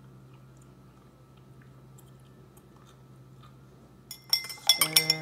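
Faint room tone with a low hum, then about four seconds in a metal spoon starts clinking quickly and sharply against the inside of a drinking glass, stirring dye into water; each strike rings briefly.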